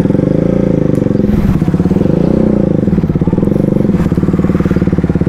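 Motorcycle engine running at low speed under the rider, its revs rising and falling a little, then holding steady near the end as the bike slows.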